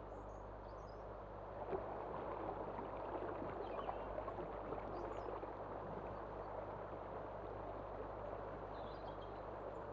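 Shallow stream rushing and babbling over rocks in a steady wash of water noise that grows louder about two seconds in, with a few faint bird chirps above it.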